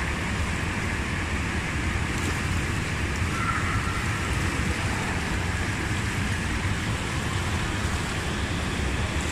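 Steady rushing noise of churning water from a bubbling whirlpool pool, with a low rumble underneath.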